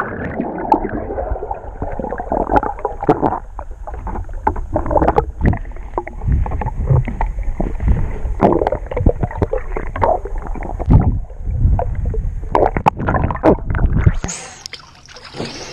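Muffled underwater sound picked up by a camera held beneath the lake surface: churning, gurgling water and a low rumble, with many scattered clicks and knocks. Near the end the camera breaks the surface, the rumble stops and the sound becomes clearer and brighter.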